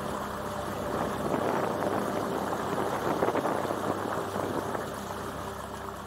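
A small boat's motor running steadily, with water splashing and rushing along the hull. The water noise is loudest in the middle.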